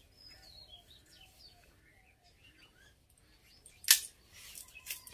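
Small knife working a thin stick by hand: one sharp crack about four seconds in, followed by a few lighter clicks. Faint bird chirps underneath.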